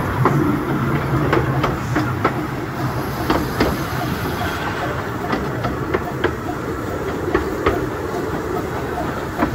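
Bure Valley Railway 15-inch gauge train running along the track: a steady rumble with irregular clicks and knocks of the wheels over the rails.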